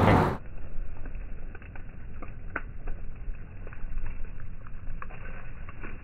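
Faint rustling of leaves with scattered light clicks over a steady low rumble, dull and muffled with no high end.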